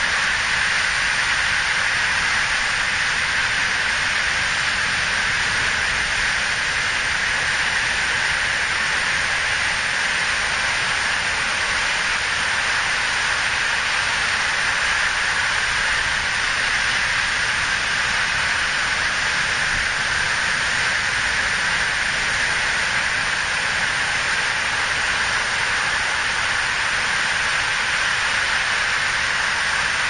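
Pacific surf breaking on a sandy beach, heard as a loud, even hiss that holds steady with no single wave standing out.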